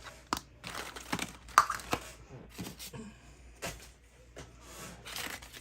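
Hands handling a plastic Mini Brands capsule ball and its packaging: irregular plastic clicks, taps and brief crinkles.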